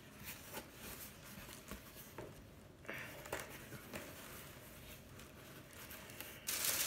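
Faint rustles and light taps of a cardboard shipping box being handled and opened, with a louder rustling starting near the end.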